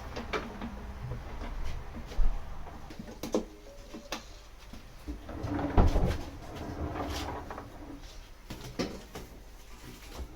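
Scattered knocks and clunks of things being handled, like a cupboard or drawer being opened and shut, loudest about two seconds and six seconds in.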